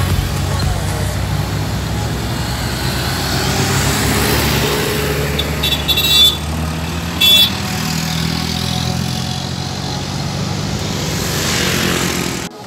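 Traffic on a mountain road: a bus engine running as it comes up the bend, with two short horn toots, the first about six seconds in and the second just over a second later. Near the end a passing vehicle rushes by and the sound cuts off suddenly.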